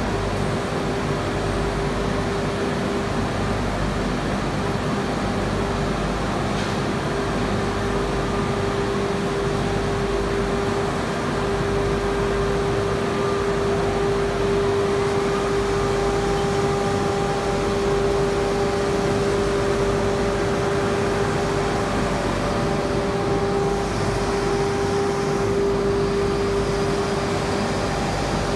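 Roller-conveyor shot blasting machine running: a steady mechanical hum with one strong mid-pitched tone and fainter higher tones over it, growing slightly louder about twelve seconds in.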